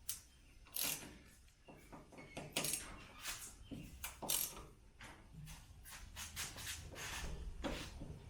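Irregular metallic clicks and knocks of hand tools, a 13 mm socket and a T50 Torx bit, working the tailgate hinge bolts loose on a Jeep Wrangler JK.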